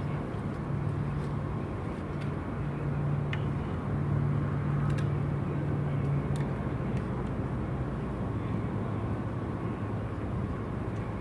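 Steady low engine drone over outdoor background noise, the drone stopping about six and a half seconds in, with a few faint clicks.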